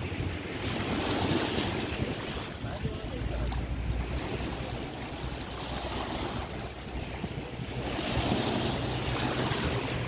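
Choppy sea water washing and breaking in waves, swelling and easing several times, with wind buffeting the microphone as a low rumble.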